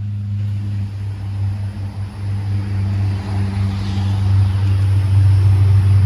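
A motor running with a steady low hum, gradually getting louder.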